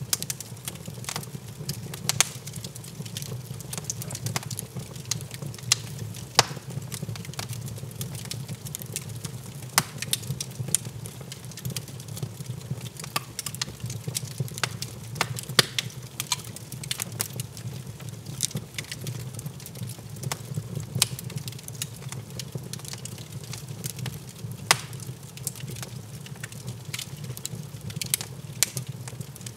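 Wood fire crackling in an open fireplace: irregular sharp pops and snaps over a steady low rumble from the burning logs.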